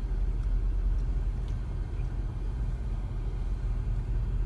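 Steady low rumble of a car's engine and running gear, heard from inside the cabin while the car sits in slow traffic.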